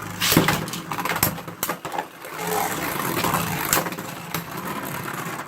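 Beyblade Burst spinning tops whirring in a plastic stadium, with sharp clacks as they collide several times. The sound stops abruptly at the end.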